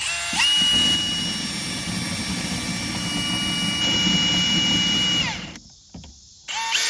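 Cordless power drill spinning up to speed with a rising whine, running steadily for about five seconds, then winding down. After a short pause it spins up again near the end.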